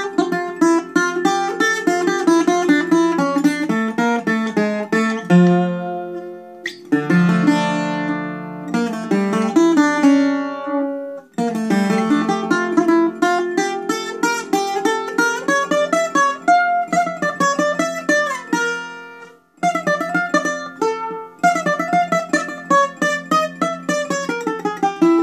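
Solo bouzouki playing a taximi, a free improvisation in minore, as fast runs of picked single notes. A ringing chord comes about seven seconds in, and the phrases break off briefly twice.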